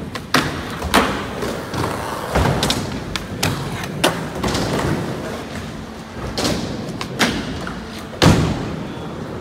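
Skateboards clacking and slapping down on ledges, rails and concrete, with wheels rolling between: a run of sharp knocks every half second to a second, the loudest about eight seconds in.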